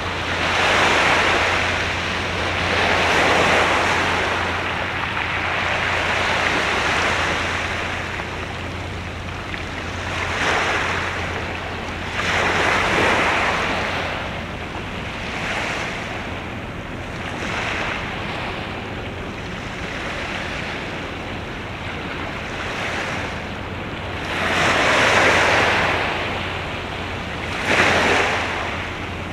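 Sea waves washing against the shore in irregular surges a few seconds apart, with a steady low hum underneath.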